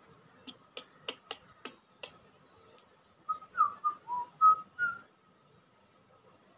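Half a dozen sharp clicks, then a run of about six short whistled notes, some rising and one dipping lower, from a person whistling softly.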